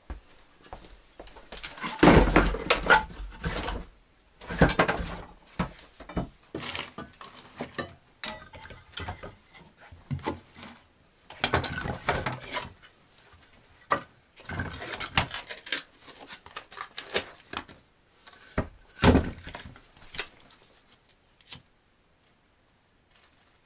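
Irregular knocks, clatters and rustles of things being handled, coming in bursts, with a heavy thump about two seconds in; it stops shortly before the end.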